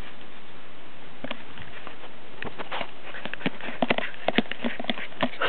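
Border collie puppy pawing and splashing in her water dish: irregular slaps and splashes, sparse at first and quickening about halfway through.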